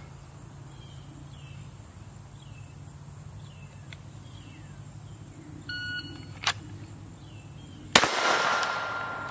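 A shot-timer beep, a sharp click about a second later, then a single .22 LR shot from a Glock 44 pistol a little over two seconds after the beep, followed by a steel target ringing.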